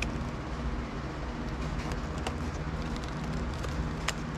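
A steady low hum, with a few light clicks from a Sony DCR-TRV17 MiniDV camcorder being handled and turned over; the sharpest click comes near the end.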